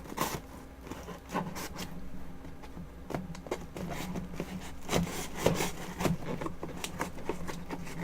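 Cardboard packaging being handled and opened by hand: scattered rubbing, scraping and light knocks of cardboard.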